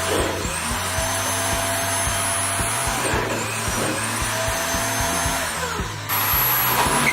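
Homemade bandsaw running with a steady motor whine and hum, its pitch dipping and recovering several times, as a motor does when it slows under load. The sound changes abruptly about six seconds in.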